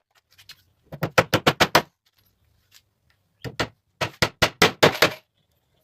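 Runs of rapid sharp knocks, about eight a second: one run about a second in, a short one past the middle, and a longer, loud run near the end.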